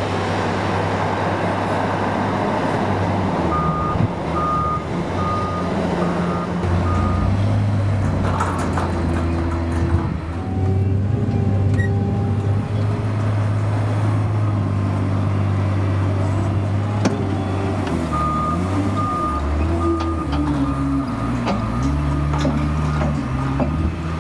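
Doosan DL200 wheel loader's diesel engine running and changing revs as it works. Twice, the reversing alarm beeps in an evenly spaced series as it backs up: once from a few seconds in, and again from past the middle to the end.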